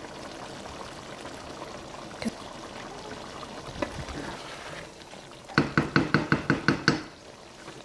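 Chicken karahi gravy simmering and bubbling in a pot. About five and a half seconds in, a spatula knocks quickly against the pot about a dozen times in a second and a half.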